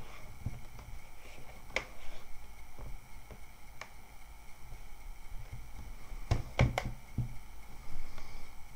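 Sharp plastic clicks and taps from a ThinkPad laptop's screen lid being handled and pressed, with a quick run of three or four clicks about six and a half seconds in, over a low steady hum.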